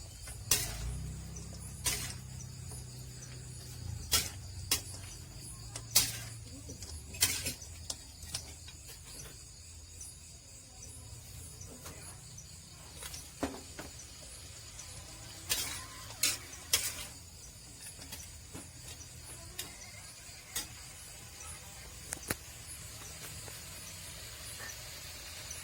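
Squirrel meat cooking in a pan, with scattered sharp pops and crackles over a faint steady hiss. Crickets chirp faintly behind.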